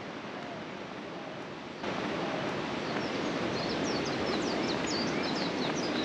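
Steady rushing of a river and the surf at its mouth, stepping up in level about two seconds in. From about three seconds in, a bird chirps a quick run of short, high notes over it.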